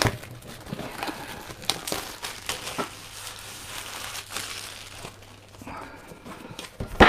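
Clear plastic shrink-wrap being pulled off a cardboard box and crumpled, crinkling and crackling in irregular small bursts. A sharp knock near the end, as the box is set down on the desk.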